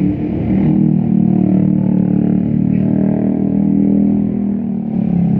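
A vehicle engine running close by: a loud, steady hum that shifts pitch in small steps.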